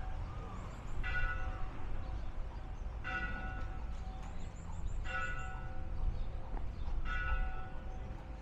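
A bell tolling slowly: four strokes about two seconds apart, each ringing on and fading before the next.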